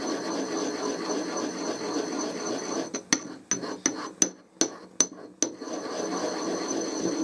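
Pestle grinding blue vitriol (copper sulphate) crystals in a mortar: a steady rubbing scrape, broken about three seconds in by a run of about eight sharp knocks as the crystals are pounded, then grinding again near the end.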